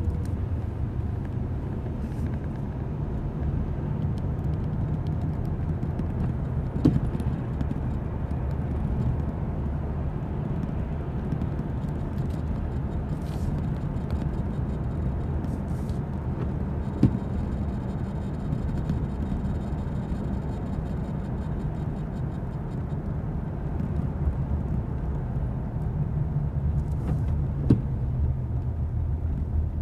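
Steady low rumble of a 2005 Ford Explorer Sport Trac's V6 engine and tyres on a wet road, heard from inside the cab. Three short sharp clicks come about ten seconds apart.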